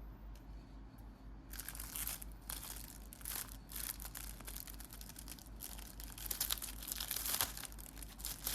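Plastic packaging crinkling and tearing as an item is unwrapped, in irregular crackly bursts that start about a second and a half in.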